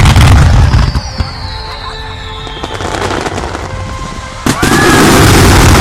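Aerial fireworks in a finale barrage: a deep boom at the start and another about four and a half seconds in, each followed by dense crackling, with a high whistle falling in pitch in between.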